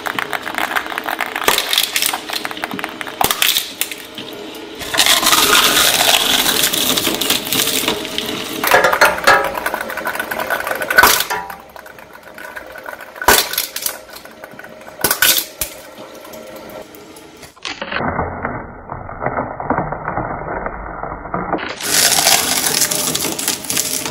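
Table tennis balls clattering and bouncing on the spinning steel cutters of a twin-shaft shredder, with sharp cracks and crunching as the blades catch and crush them.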